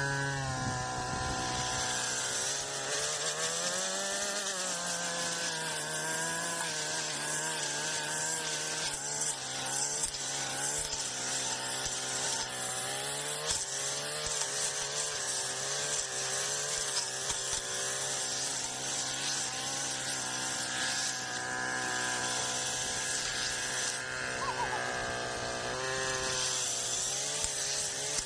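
Brush cutter's small petrol engine running steadily while cutting tall grass, its pitch rising and dipping as the load changes.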